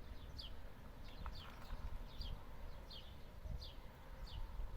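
A small bird calling repeatedly: short high chirps, each falling in pitch, a couple a second, over a low rumble.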